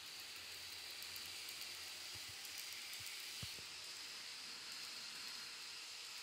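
Model container freight train hauled by an EF66-100 locomotive rolling past on the layout track: a steady, faint hiss from the wheels and running gear, with a few faint clicks.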